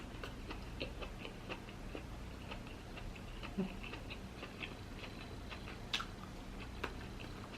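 Soft, close-up chewing of lobster: faint, irregular wet mouth clicks and smacks.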